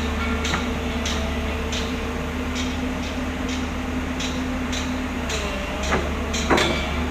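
A steady engine drone with a regular clicking about twice a second and a louder knock near the end.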